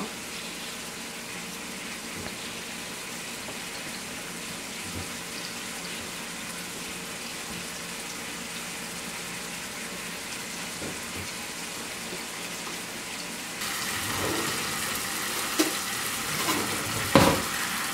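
A steady hiss, then a ribeye steak sizzling in olive oil in a frying pan, louder from about three-quarters of the way through, with a couple of sharp knocks near the end.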